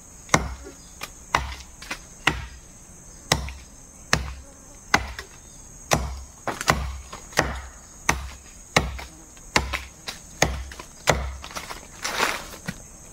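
A traditional Sarawak parang chopping into a calf-thick tree trunk, one hard stroke about every 0.8 seconds. Insects chirr steadily behind.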